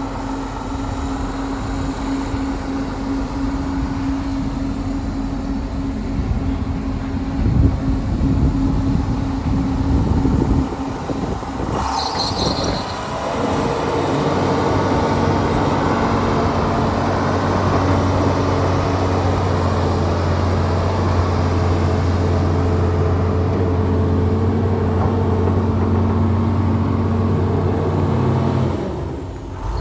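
John Deere 750C LT crawler dozer's diesel engine running. Its note shifts about twelve seconds in and then holds a steady pitch.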